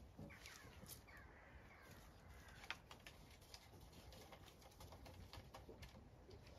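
Near silence: faint distant birdsong in the first couple of seconds, and a few soft clicks, the clearest about two and a half seconds in.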